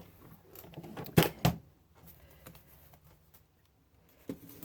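Hand-handling clatter: two sharp knocks a little over a second in, with faint clicks and rustling around them.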